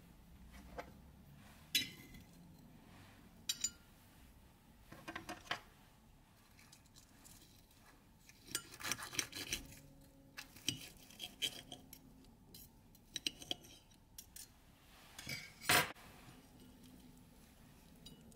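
Fork and knife clinking and scraping on a plate while cutting a fried onion ring, in scattered short bursts with the loudest clink late on.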